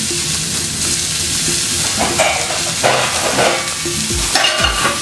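Cod fillet sizzling in oil in a frying pan, a steady hiss that carries on as the pan comes off the heat. A few dull knocks from handling near the end.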